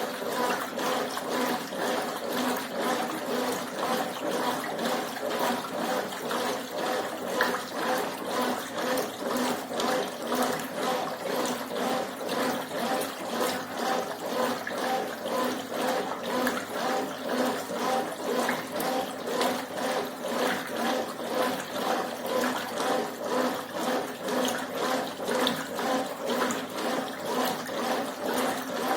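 Brastemp Ative 11 kg top-loading washing machine running a wash cycle, water churning in the drum in even surges about twice a second.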